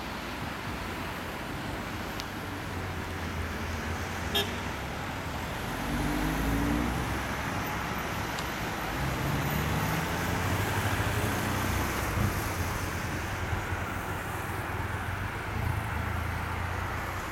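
Road traffic: small cars passing close by on the road, their engines and tyres swelling as each goes past, with a single sharp click about four seconds in.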